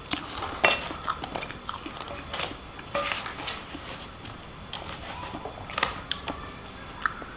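Cutlery clinking and scraping against a plate while eating: irregular short clinks, a few of them ringing briefly.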